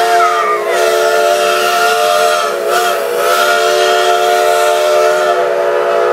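Steam locomotive's chime whistle blowing one long, loud blast, several tones sounding together as a chord with a hiss of steam, wavering briefly in pitch about three seconds in.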